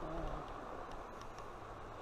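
Faint steady outdoor background noise with a low rumble, a brief low voice murmur right at the start, and a few faint small clicks.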